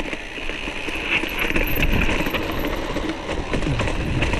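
Mountain bike being ridden: a steady rumble of rolling tyres with scattered clicks and rattles and wind noise.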